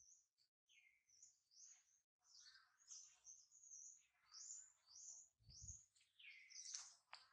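Faint, rapid high-pitched bird chirps, repeated many times in quick succession, with a soft low thump about five and a half seconds in.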